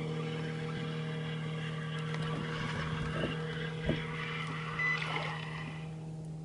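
Small 15-horsepower outboard motor running steadily at low speed with an even hum, a rushing hiss of water and wind over it.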